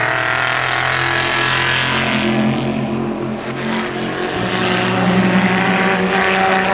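Race car engines running at speed on the circuit, several engine notes overlapping. About four seconds in, one car's note fades and another, higher note takes over.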